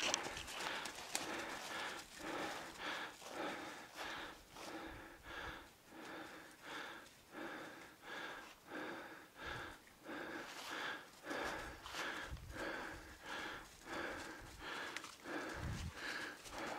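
Footsteps crunching through dry fallen leaves at a steady walking pace, about two steps a second, with heavy breathing.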